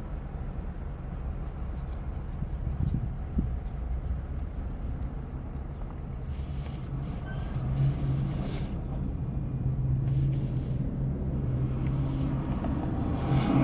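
Steady low rumble like a car engine idling, with scattered light clicks from eating over it.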